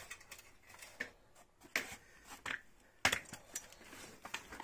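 Light metal clicks and rattles from a steel-tube baby cradle frame and its hanging chain being handled and unhooked from the stand, with a sharper knock about three seconds in.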